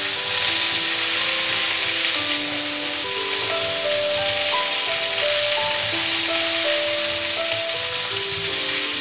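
Chunks of vegetables sizzling in hot oil in a wok as they are stirred with a wooden spatula. Slow instrumental background music with held notes plays over it.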